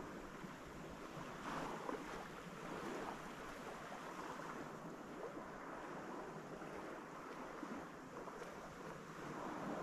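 Small waves washing gently onto a sandy beach: a soft, steady hiss of surf that swells slightly every few seconds.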